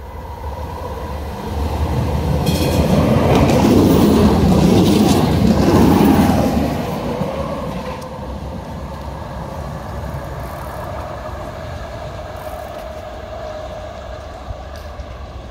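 Tram passing close by on its rails. Its running noise builds to a loud peak a few seconds in, with a brief high ringing tone, then fades as it moves away, leaving a steady whine.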